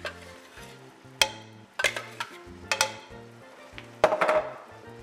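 A plastic blender jar knocked against the rim of a stainless-steel cooking pot to shake out the last of a seasoning paste: a series of sharp, ringing knocks, some in quick pairs. A busier clatter comes about four seconds in, with background music underneath.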